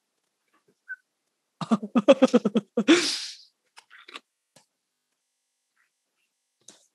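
A person laughing: a quick run of short 'ha' pulses about a second and a half in, ending in a breathy exhale. A few faint crinkles follow.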